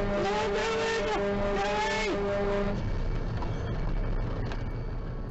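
Dump truck's air horn held in one long, steady blast, a higher wavering tone sounding over it twice, cutting off about two and a half seconds in; then the truck's engine and road noise go on. It is a warning blast from a truck whose brakes have failed going downhill.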